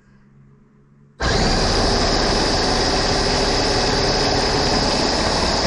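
Small food processor switching on about a second in and running steadily, its blade chopping basil leaves and walnuts.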